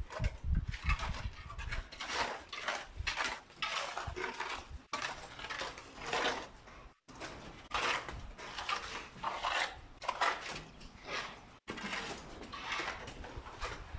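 Steel plastering trowels scraping across plaster in quick, irregular strokes, with occasional metal clinks.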